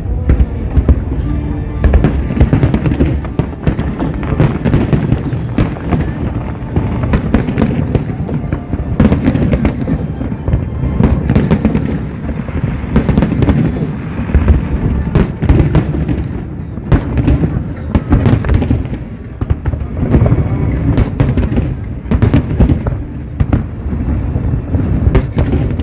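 Aerial fireworks display: a rapid, continuous string of sharp bangs and crackles from bursting shells, several a second, over a steady low booming.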